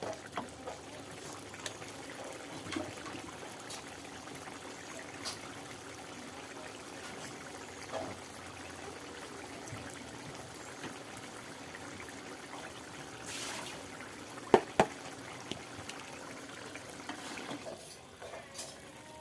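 Stir-fried fern shoots sizzling steadily in a wok, with now and then a clink of the spatula, two sharp knocks about two-thirds of the way through.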